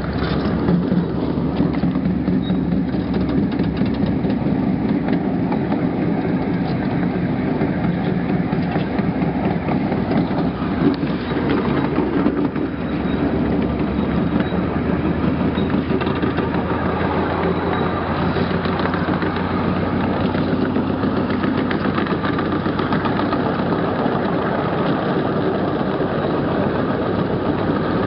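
12-inch gauge ride-on train running steadily along its track, heard from one of its passenger cars: an even, continuous drone of the moving train.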